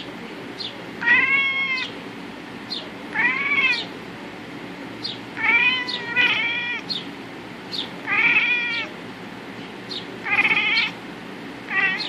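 Domestic cat meowing at birds outside the window: about seven drawn-out meows, each rising then falling in pitch, mostly about a second apart, with two back to back near the middle.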